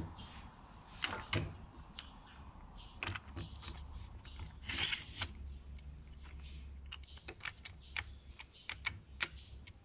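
Plastic one-handed bar clamps being fitted and lightly squeezed onto a knife's freshly epoxied wooden handle: scattered light clicks and knocks from the clamp triggers and handling, with a short scraping rustle about halfway through.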